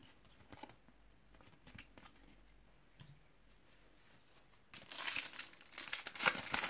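A foil trading-card pack being crinkled and torn open by hand, starting about two-thirds of the way in and running on to the end. Before that, only a few faint light taps as cards are laid down.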